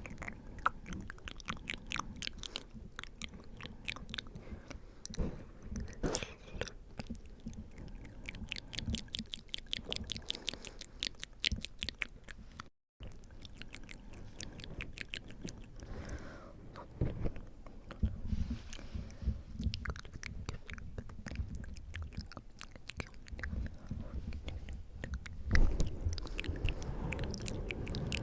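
Close-miked wet mouth sounds: rapid tongue and lip clicks and smacks, with breath blowing on the microphone as a low rumble, loudest about three-quarters of the way through.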